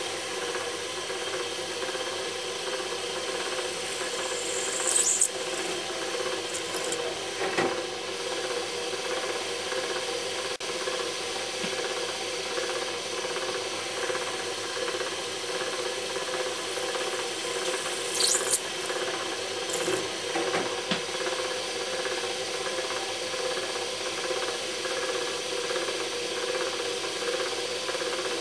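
Electric drill in a pillar stand running steadily, its tapered drill shank cutting a tapered hole into a white plastic plug held in a machine vice. Brief high scraping squeaks of the shank against the plastic come about five seconds in and again near eighteen seconds.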